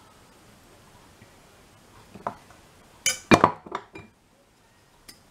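Metal tablespoon clinking against a glass mixing bowl: one clink a little over two seconds in, then a quick cluster of clinks and knocks about a second later.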